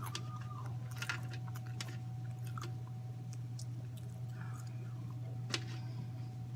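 A person chewing food close to the microphone, with a few wet mouth clicks and smacks, over a steady low hum.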